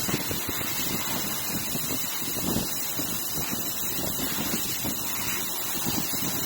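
CNC machining centre running through a cut on a beam clamp, a steady hiss with irregular low rumbling.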